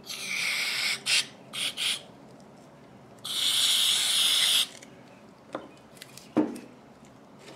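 Aerosol spray can hissing in blasts onto an HVLP spray gun's fluid tip to blow it clean: a blast of about a second, two short spurts, then a longer blast of about a second and a half. Two light knocks follow.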